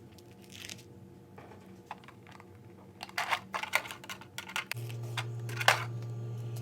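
Small plastic clicks and rustles from parts being handled, thicker in the second half. A steady low hum comes in about three-quarters of the way through and keeps going.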